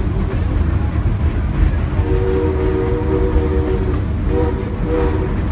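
Steam locomotive No. 111's whistle sounding one long blast and then two short ones, over the steady rumble of the moving train.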